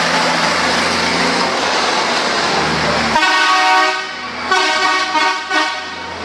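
A heavy trial truck passes close, its engine a loud rushing noise over a low drone. After a sudden change about three seconds in, a truck horn sounds three blasts.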